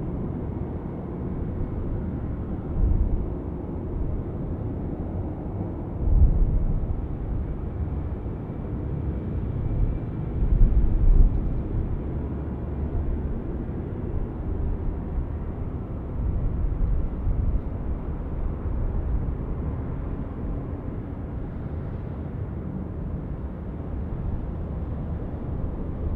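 Jet airliner engines rumbling, steady and low, with a few louder low surges.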